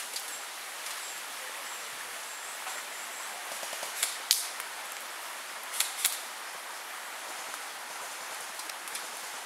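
Airsoft gun shots: sharp pops in two pairs, about four seconds in and again about six seconds in, over a steady background hiss.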